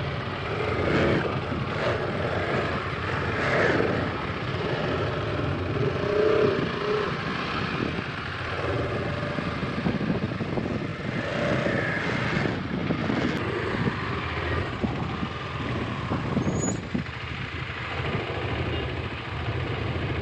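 KTM 250 Adventure's single-cylinder engine running as the motorcycle rides a muddy off-road trail, heard from on the bike.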